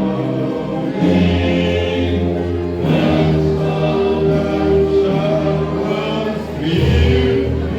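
Music with a group of voices singing together, over sustained low bass notes that change about once a second.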